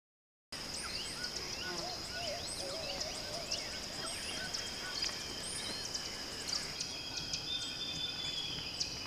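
Tropical rainforest ambience starting about half a second in: a steady high insect drone with many short bird chirps and whistles over it, and a lower wavering call about two seconds in.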